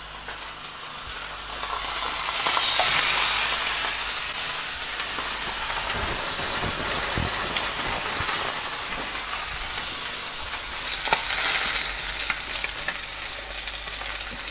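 Sea bream fillets sizzling skin-side down in olive oil in a hot frying pan, flash-frying to crisp the skin. The sizzle swells about two seconds in. A slotted spatula gives a few light clicks and scrapes near the end.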